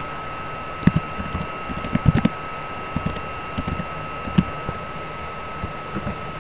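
Typing on a computer keyboard: scattered, irregular key clicks, some in quick runs of several strokes.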